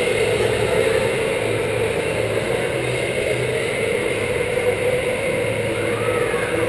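Go-karts lapping an indoor track: a steady, unbroken motor drone.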